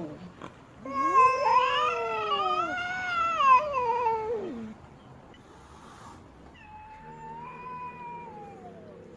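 Female cat yowling: a loud, long, wavering wail starting about a second in, then a quieter, drawn-out call that falls in pitch near the end.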